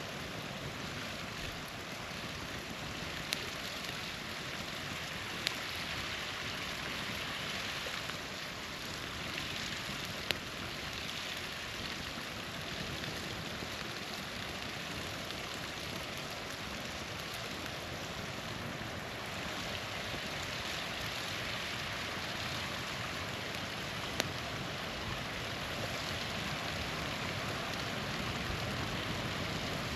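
Small waterfall rushing steadily, with a few sharp pops from a crackling campfire.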